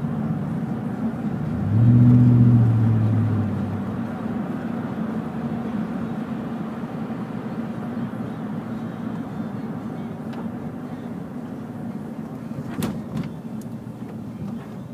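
Steady road and engine noise heard inside a moving car's cabin. About two seconds in, a louder low drone swells for about two seconds and fades. A couple of sharp clicks come near the end.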